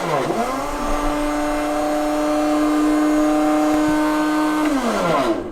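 A household appliance's electric motor running: its whine dips and recovers in pitch several times, holds steady, then falls away and stops as it is switched off near the end.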